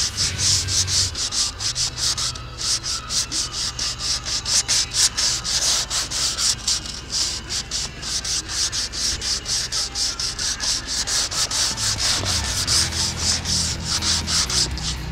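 Rapid, even back-and-forth rubbing or scraping strokes, about four or five a second, kept up steadily.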